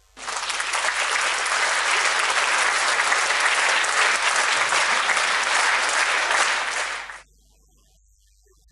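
Concert audience applauding: dense, even clapping that starts suddenly and cuts off abruptly about seven seconds in.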